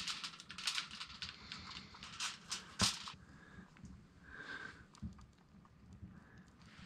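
Aluminium foil crinkling and rustling as it is handled and smoothed out, with a sharp knock about three seconds in, then quieter rustling.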